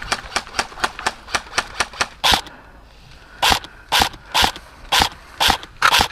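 Airsoft gun firing: a quick run of shots about five a second, then after a short pause louder single shots about two a second.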